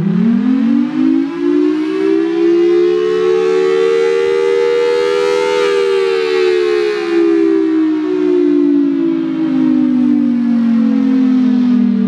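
Federal Sign & Signal Thunderbolt 1003 siren sounding its two-tone chord, from a 5/6 port ratio, on the attack signal, a wail. The pitch climbs quickly, peaks near the middle and slowly falls back down as the horn rotates.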